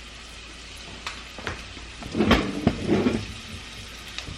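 Chopped onion frying in a pan with a steady sizzle, with a few knocks and a louder clatter of a spatula against the pan about two to three seconds in.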